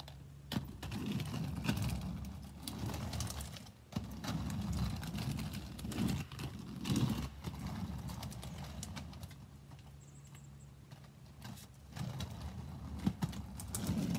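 Roller skates rolling on a hard surface: a low rumble that swells and fades with each push, with scattered clacks and knocks.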